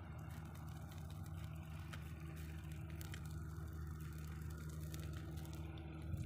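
Steady low drone of an engine running, with faint scattered clicks over it.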